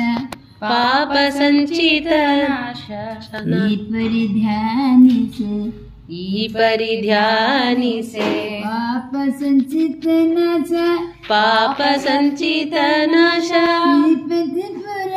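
An elderly man's voice singing a Kannada Haridasa devotional song (Dasa Sahitya devaranama) solo. It moves in long held phrases with wavering, ornamented pitch and short pauses for breath.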